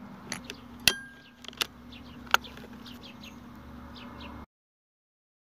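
Weihrauch HW100 .177 PCP air rifle firing: two sharp cracks, the first about a second in with a brief metallic ring, the second near two and a half seconds, among lighter clicks. Small birds chirp between them over a steady low hum, and the sound cuts off suddenly after about four and a half seconds.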